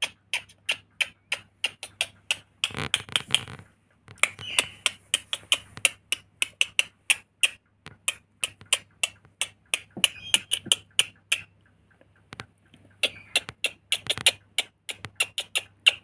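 Rainbow lorikeet clicking rapidly while it dances, about four sharp clicks a second, broken by a few short raspy bursts.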